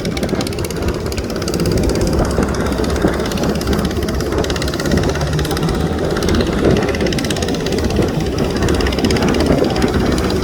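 Jet ski engine running steadily under way, with a steady rushing noise over it.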